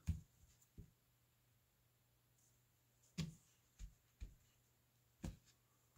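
Near silence broken by about five soft taps and clicks as trading cards are handled and set down on a tabletop.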